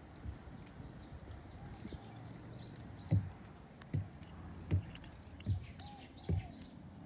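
Footsteps of a person walking, a steady step about every 0.8 seconds from about three seconds in, with small birds chirping in the background.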